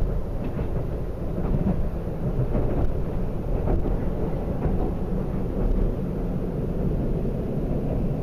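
Steady low rumble of a moving diesel express train heard from inside the passenger cabin: engine and wheels on the track. Faint light ticks come through about once a second.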